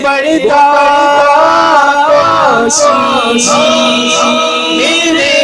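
A man singing an Urdu devotional naat into a microphone without instruments, holding long notes that glide up and down in pitch.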